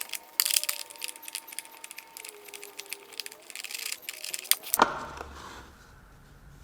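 Rapid, irregular metallic clicking and clattering of a hand socket wrench undoing nuts on the car's filter housing; it stops abruptly a little under five seconds in.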